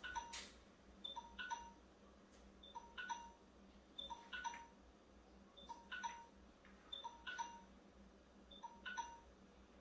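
Faint, evenly repeating short high chimes with soft clicks, a cluster about every second and a half.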